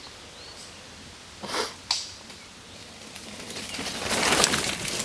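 A mountain bike coming down a dirt trail: a noisy rush of tyres on dirt that grows louder over the last two seconds as it nears. Two short rustles come about a second and a half in, with a faint bird chirp near the start.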